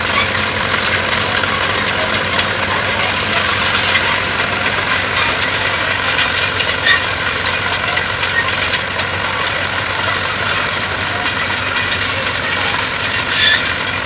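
Fordson Major County crawler tractor running steadily while pulling a plough, its engine mixed with the rattle of its steel tracks, with one sharp clack near the end.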